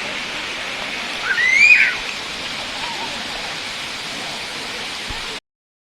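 Steady rush of falling water, with one short rising-then-falling whistled call about a second and a half in. The sound cuts off suddenly near the end.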